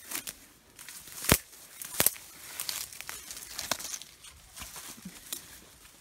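Footsteps crunching through dry fallen leaves and undergrowth, with irregular crackling and two sharp cracks a little over a second apart near the start.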